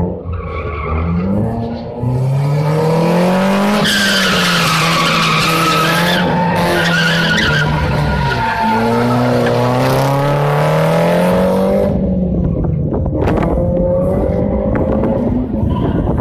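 Kia Rio race car running an autocross course: the engine rises and falls in pitch as the car accelerates and lifts between cones, with tyres squealing through the turns. About twelve seconds in, the engine note drops away as the car moves off.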